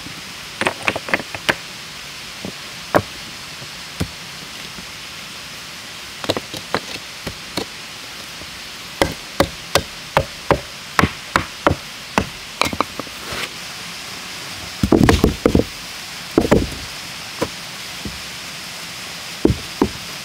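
Irregular sharp knocks and clacks of hard objects being handled and set down, with a cluster of heavier, deeper thuds about 15 seconds in, over a steady background hiss.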